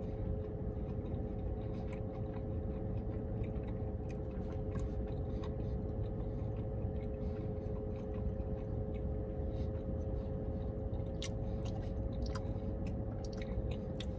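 A man chewing a mouthful of burger with his mouth closed, with faint wet mouth clicks scattered through it, more of them near the end. Under it runs a steady low hum with a constant tone, heard inside a car.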